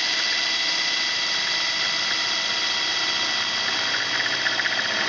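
Electric drill running steadily under load, driving the pilot bit of a 9/16-inch hole saw arbor through a metal door.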